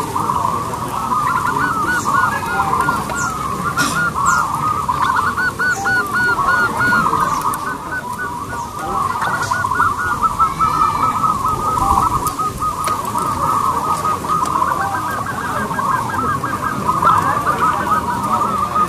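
Zebra dove (perkutut) cooing: long runs of rapid, repeated staccato notes that follow one another almost without a break, easing briefly about eight seconds in.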